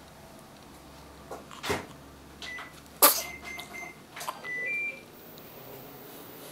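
A small child's sneeze, one sudden sharp burst about three seconds in that is the loudest sound, with a few short high electronic beeps around it.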